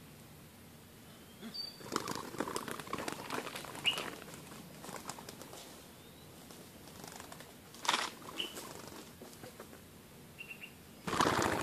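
Doves foraging on dry ground: scattered rustling and scratching in dry litter, a few short high chirps, and a loud flurry of wing flaps near the end.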